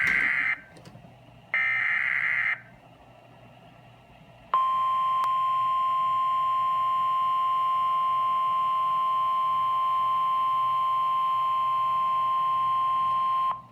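Emergency Alert System SAME data header: two short bursts of buzzing data tones, followed by the steady single-pitch NOAA Weather Radio warning alarm tone that holds for about nine seconds and cuts off abruptly. It signals a severe thunderstorm warning.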